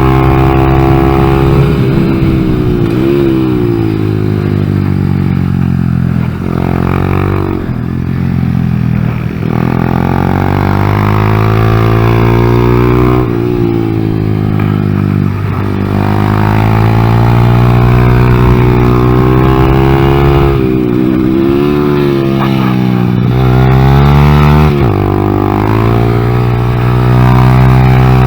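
2014 Honda Grom's 125cc single-cylinder four-stroke engine revving hard under load. Its pitch falls sharply several times, as the throttle is shut and the rider downshifts for corners, and it climbs again each time.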